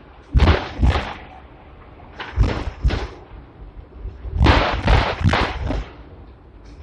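Hong Kong double-decker tram's wheels clattering over the rail joints as it runs along the track: three groups of sharp clacks, mostly in pairs about half a second apart, with a low running hum between.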